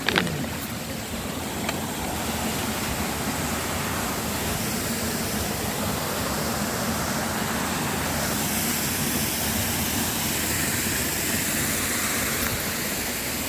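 Waterfall and pool water rushing steadily, with a brief knock at the very start and a small tap a couple of seconds in.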